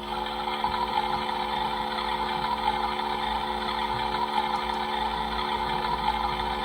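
A toy washing machine's small electric motor running with a steady whirring hum, its pitch settling into a new, even tone right at the start.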